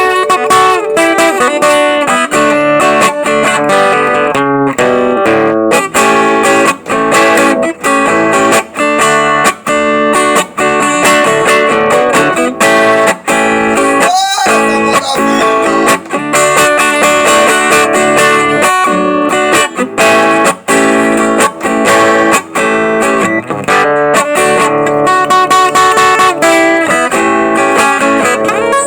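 A guitar (violão) is played with a steady stream of plucked notes and chords. About halfway through there is a brief break with a sliding note.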